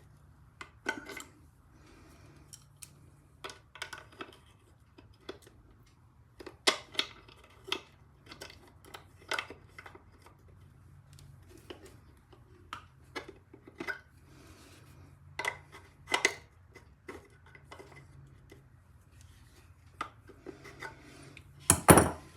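An adjustable spanner and small metal parts of a British Seagull outboard clinking and knocking as the motor is taken apart: scattered sharp clicks, with the loudest cluster near the end.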